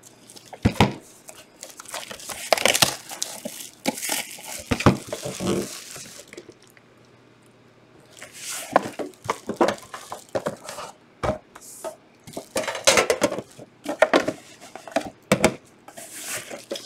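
Clear plastic shrink wrap being torn off sealed trading-card boxes and crumpled, in irregular crinkling rustles with a few short knocks from the boxes being handled. A pause of about two seconds comes midway.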